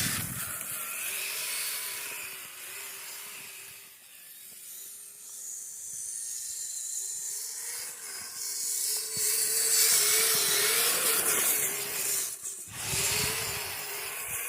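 Electric motor and drivetrain of a Kyosho Blizzard radio-controlled tracked snow vehicle whining as it drives through snow, the pitch rising and falling with the throttle, over a steady high hiss. The whine fades to its faintest about four seconds in and is back louder near the end.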